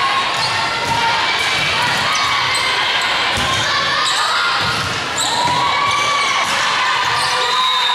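Volleyball play in a large, echoing gym hall. Sneakers squeak on the sport court over and over, balls are struck, and a crowd chatters in the background.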